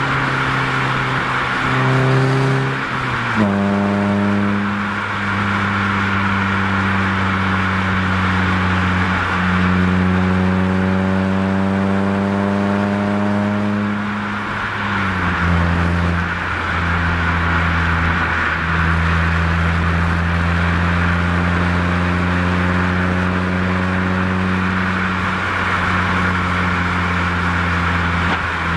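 Toyota Echo's 1.5-litre four-cylinder exhaust through a header and a Scion xA TRD axle-back muffler, heard from bumper level while driving. The note drops with an upshift about three seconds in, climbs slowly as the car gains speed, drops again with another upshift near fifteen seconds, then holds steady at cruise. Road and wind hiss run underneath.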